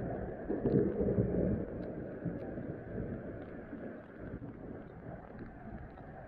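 Low rumble of thunder dying away under steady heavy rain, with wind buffeting the microphone.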